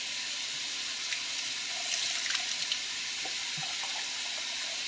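Kitchen faucet running a steady stream of water into a can of black beans and a mesh strainer as the beans are rinsed, with a few light taps.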